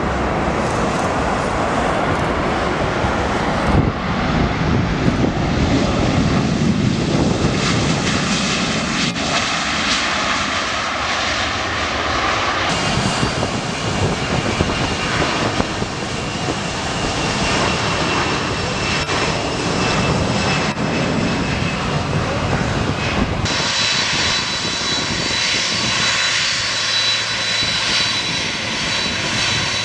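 Jet airliner engines running loud on the runway, in several clips cut together, with the sound changing abruptly about four, thirteen and twenty-three seconds in. From about thirteen seconds a high steady fan whine sits over the rumble, strongest in the last part, where a Boeing 767 is on the runway.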